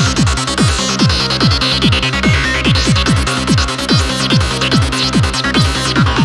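Goa trance music from an Ableton Live project: a steady driving kick drum and bass with a synth lead built in Ableton's Operator, sweeping up and down in pitch in the highs.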